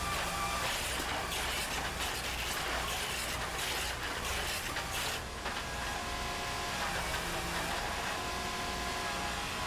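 IMT80 truck-mounted foundation drill rig running steadily: a constant engine rumble with hydraulic machinery noise.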